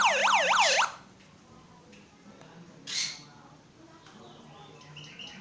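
Homemade electronic siren built from a toy siren chip driving a small speaker, giving a fast electronic warble with rapidly repeating falling sweeps, about four a second, that cuts off about a second in. A brief scratchy hiss follows about three seconds in.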